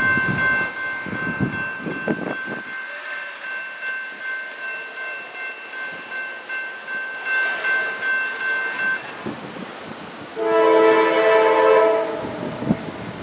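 Grade crossing bell ringing steadily while the gates lower, falling silent about nine seconds in. About ten seconds in, the approaching GE D9-40CW locomotive sounds its multi-chime air horn in one loud blast lasting about a second and a half.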